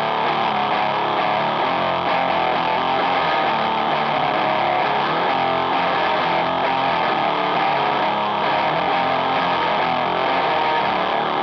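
Electric guitar played through a Catalinbread Carbide distortion pedal, giving the heavily saturated HM-2 style "chainsaw" tone. It plays a continuous, fast death-metal riff at a steady loudness.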